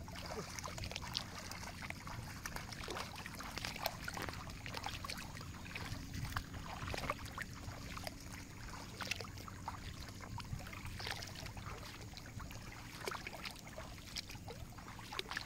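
Shallow water splashing and sloshing as a person wades through floodwater and throws a cast net, which lands on the water about halfway through; near the end the net is hauled back in, with water trickling and dripping off it.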